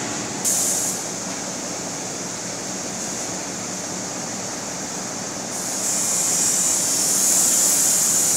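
Peanut chopper machine running with a steady mechanical noise. About six seconds in it grows louder, with a bright hiss, as peanuts are tipped into its hopper and chopped.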